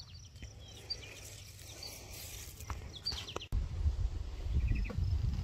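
Small birds chirping in short high notes over quiet outdoor background. About three and a half seconds in, the sound cuts to a louder, uneven low rumble of wind on the microphone, with a few more chirps.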